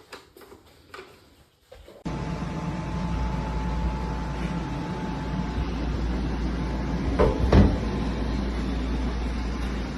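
Portable air conditioner running: a steady fan noise with a deep hum and a faint steady tone that starts abruptly about two seconds in, after a few faint clicks, with a couple of louder knocks about seven seconds in.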